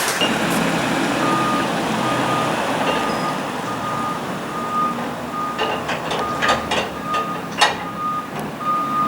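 Reversing alarm beeping steadily, a single tone repeating a little faster than once a second, over a vehicle engine running. A few sharp clanks come between about six and eight seconds in.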